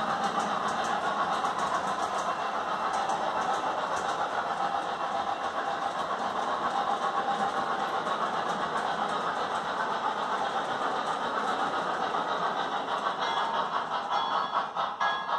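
MTH Premier Pennsylvania G5s O-gauge model steam locomotive running with its hopper train: a steady rolling noise of wheels on the three-rail track mixed with the locomotive's Proto-Sound 3.0 steam sounds. Near the end a few pitched tones come in.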